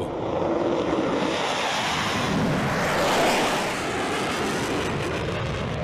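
F-16 fighter jet engine at full power with afterburner lit, a steady rushing jet noise that swells to its loudest about halfway through and then eases slightly as the plane climbs past.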